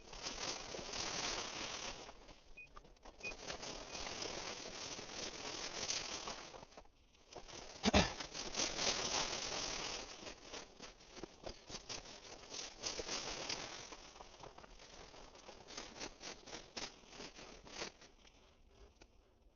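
Dry grass and brush rustling and crackling as someone pushes through cover on foot, with one sharp knock about eight seconds in; the rustling thins to scattered crackles near the end and then stops.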